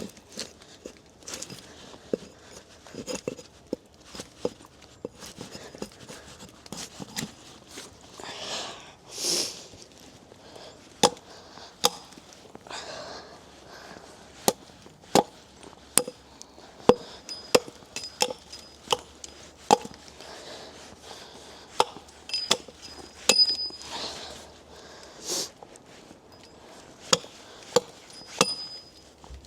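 Axe chopping wood: a long run of sharp, separate strikes at an uneven pace, about one or two a second.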